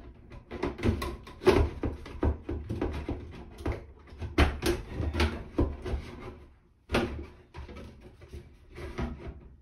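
NuTone bathroom exhaust fan's plastic assembly knocking, scraping and rattling against its ceiling housing as it is pushed and worked onto its catch. The irregular knocks are thick for the first six seconds, then sparser and fainter.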